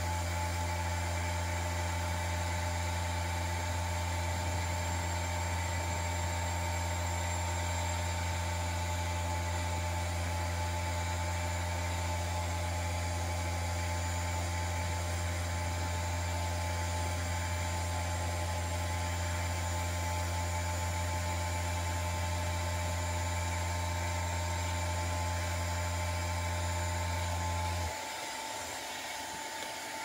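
Carpet and upholstery extractor running steadily: a vacuum motor's hiss and whine over a strong low hum. The low hum cuts off suddenly about two seconds before the end, and the vacuum keeps running.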